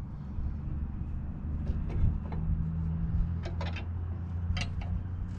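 Light metallic clicks and taps as a steel receiver tube is shifted and set on a steel plate, a few scattered knocks over a steady low hum.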